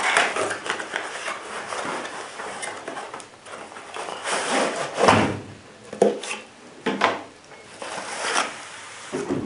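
Cardboard riflescope box being opened by hand: end flaps pulled open and the white inner box slid out, with card rustling and several louder scrapes.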